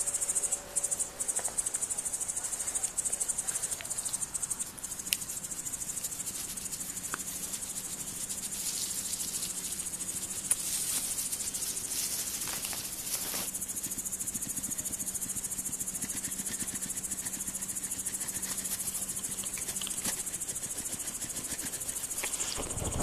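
Steady, high-pitched insect chirring, a fast even buzz that runs without a break, with a few faint clicks.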